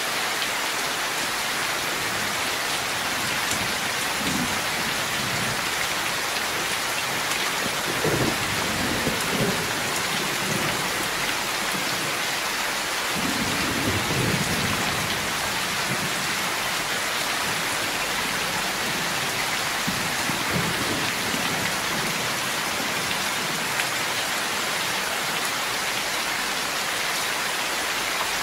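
Heavy rain falling steadily, with water streaming off a roof edge. Low rolls of thunder rumble through it, most strongly about eight seconds in and again about thirteen seconds in.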